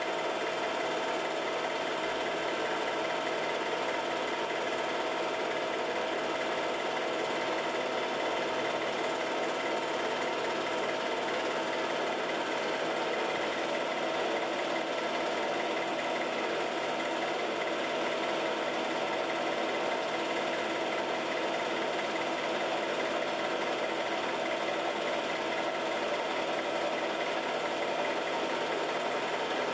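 Home-movie film projector running steadily, its motor and mechanism making an even mechanical whir.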